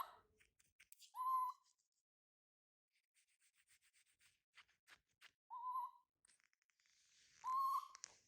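A baby monkey's short, slightly wavering cries, three of them a few seconds apart, with faint clicking between the first and second.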